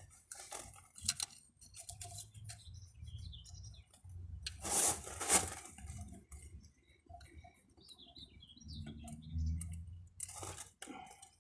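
Small metallic clinks and scrapes of a wrench loosening the terminal nuts and bridge strips on a diesel engine's glow plugs, with a few faint high squeaks and two louder scrapes about halfway through.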